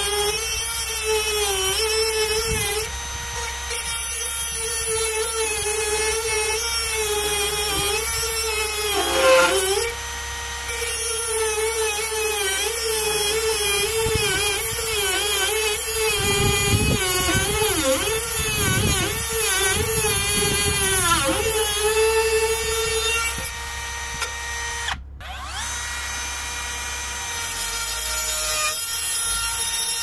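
Parkside Performance PPFBSA 12 A1 cordless brushless rotary tool cutting a thin metal bracket, about 1 to 1.5 mm thick, with a cut-off disc: a steady high motor whine with grinding, its pitch sagging and wavering as the disc is pressed into the metal. It eases off briefly a few times between cuts.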